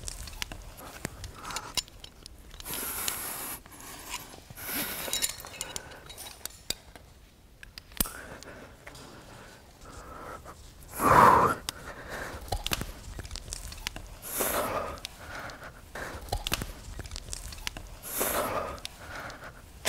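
A rock climber breathing hard under strain, with forceful exhalations every few seconds and one loud grunt of effort about eleven seconds in. Light clicks and taps sound between the breaths.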